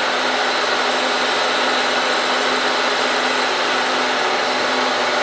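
Milling machine running steadily, not yet cutting: an even hiss with a low hum under it.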